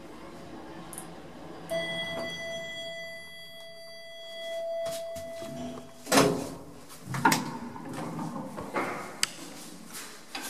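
Old elevator arriving at a floor: a steady tone sounds for about four seconds, then the car's sliding doors open with a loud clunk about six seconds in, followed by further knocks as the swing landing door is pushed open.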